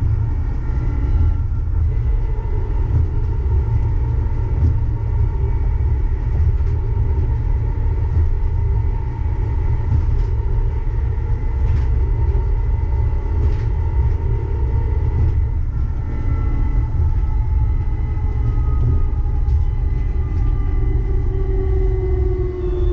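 Uijeongbu light rail train (Siemens VAL 208 rubber-tyred car) running between stations, heard from inside the car: a steady low rumble with a motor whine and a few faint clicks. In the last several seconds the whine falls in pitch as the train slows.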